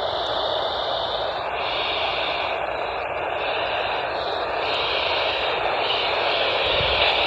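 Steady radio static hiss from a weather radio receiver, with no voice or alert tone coming through.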